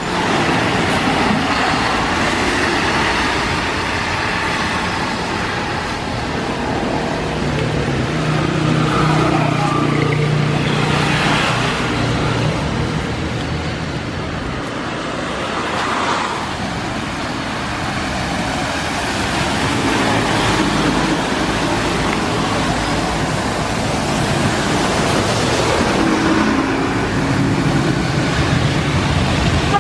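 Road traffic on a rain-wet city avenue: city buses and cars passing, with engines running and tyre noise over a steady haze of sound. A bus engine's low hum stands out about a third of the way in and again near the end.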